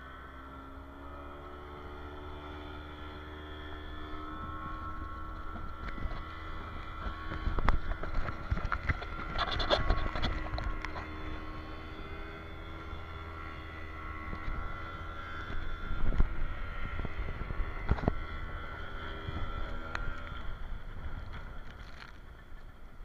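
A towing motorboat's engine drones and speeds up over the first few seconds. Over it come repeated splashes and slaps of water against the inflatable towed tube as it bounces over the wake, with wind rushing on the microphone.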